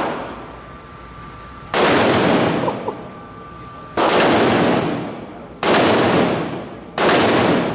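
Four gunshots at a shooting range, spaced about one and a half to two seconds apart, each sharp crack followed by a long echoing tail.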